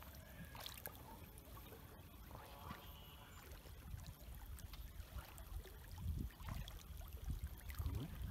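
Faint water trickling and lapping around a canoe on the river, with low rumbles growing louder in the last couple of seconds.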